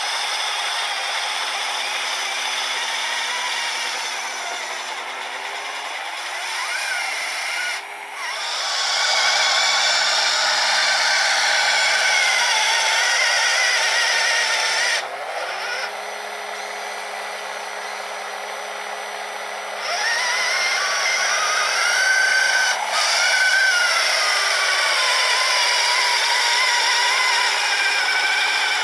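Small electric motors of a radio-controlled truck and its 3D-printed snowblower running, a steady whine whose pitch rises and falls as the throttle changes. It gets quieter and louder several times, with brief dips about 8 and 15 seconds in and a rise about 20 seconds in.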